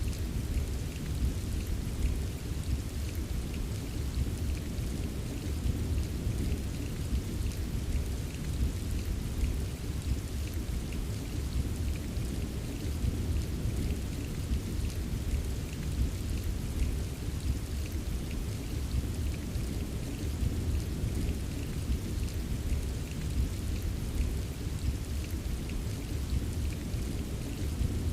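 Steady rain, with many small drops tapping, over a continuous deep rumble of distant thunder. The rumble stays even, with no sharp thunderclap.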